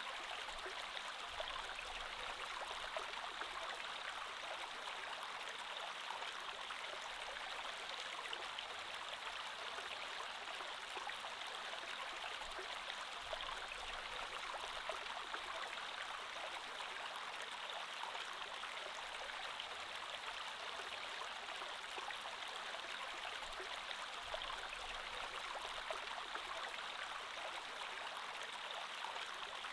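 Creek water flowing steadily over stones, an even rushing babble.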